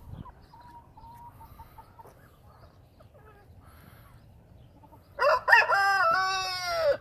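Rooster crowing once, starting about five seconds in: a loud cock-a-doodle-doo lasting about two seconds and ending on a long note that falls in pitch. Before it, only faint sounds from the feeding flock.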